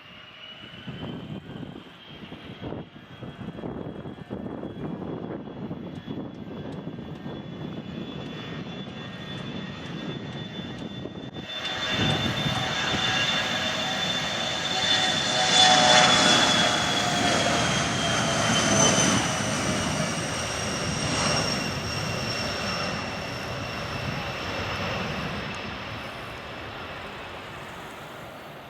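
Airplane taking off: the engines run with a steady high whine and rumble, then about twelve seconds in the noise jumps up sharply as takeoff power comes on. It is loudest a few seconds later, then the whine drops slightly in pitch and fades as the aircraft moves away.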